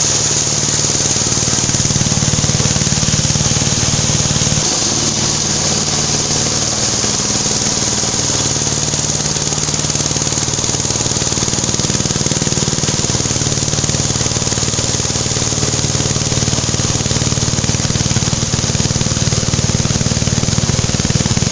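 Corn-cob flour mill running, a loud steady machine drone with a constant high hiss from the milling.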